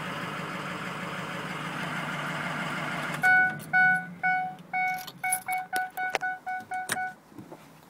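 Diesel engine of a 2008 Ford E-450 box truck idling, then cut off about three seconds in. The dashboard warning chime then beeps, about two a second at first, then faster, about four a second, with a few sharp clicks among the beeps.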